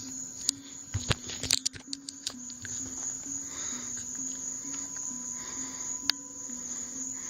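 Crickets chirping steadily through the night air, under low background music that steps slowly up and down in pitch. A quick run of sharp clicks and knocks comes about a second in, with single clicks just before and near the end.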